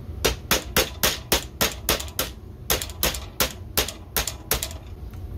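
A takedown pin being worked out of the front end of a 3D-printed foam-dart blaster: a quick series of sharp clicks, about three a second.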